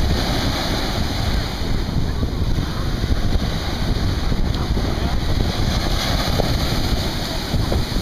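Small ocean waves breaking and washing up a sandy shore in a steady rush, with wind rumbling on the microphone.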